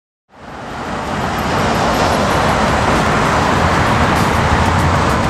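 Steady city street traffic noise, cars passing with a low engine hum, fading in from silence at the start.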